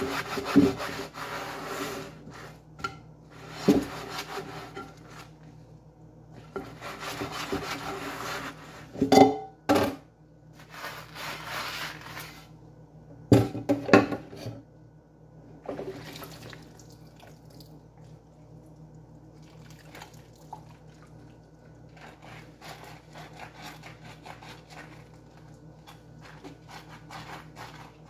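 Dishes being washed by hand at a kitchen sink: water running in several short spells and a few sharp clinks of dishes midway, then a sponge scrubbing a glass pot lid through the second half.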